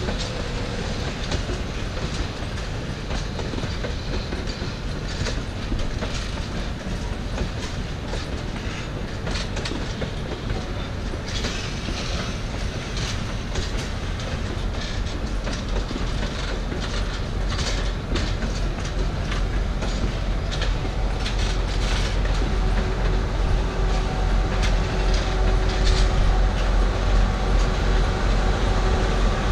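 Passenger train carriages rolling slowly past, their wheels clicking over rail joints with occasional faint wheel squeal. Near the end a steady engine hum grows louder as the power van and diesel locomotive draw near.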